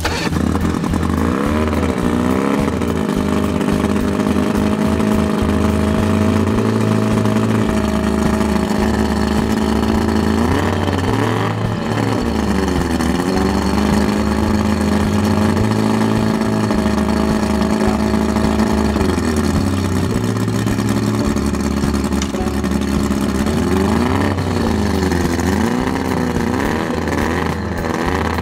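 1983 Mercury Classic 50 two-stroke outboard running on the trailer, its speed dropping and picking back up several times between spells of steady running.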